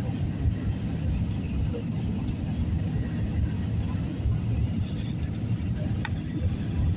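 Steady low rumble of engine and airflow noise inside a jet airliner's cabin during the landing approach, flaps extended.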